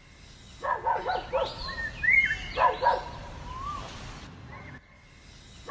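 Short, high, yelping animal calls in several quick bursts, each a few rapid yips with rising and falling pitch.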